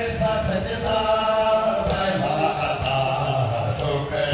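A group of men chanting together in a mourning lament, drawn-out voices holding long notes.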